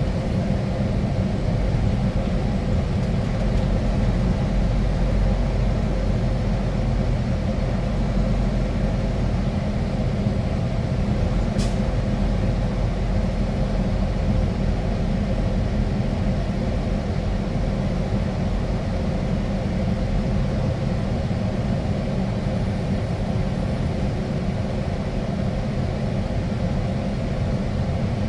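Steady engine and road rumble heard from inside a moving vehicle's cab while driving at a constant pace. A single short click about twelve seconds in.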